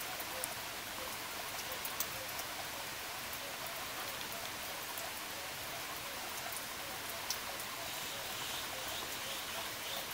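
Steady rain falling, with scattered sharp drops ticking now and then.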